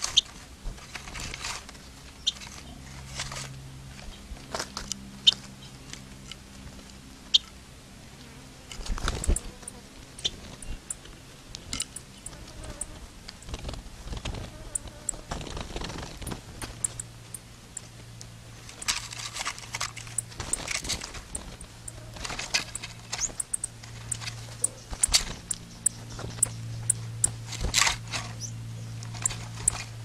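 Small birds hopping and pecking about on dry straw and leaf litter inside a mesh trap: scattered light crunches, rustles and clicks, thickest in the second half.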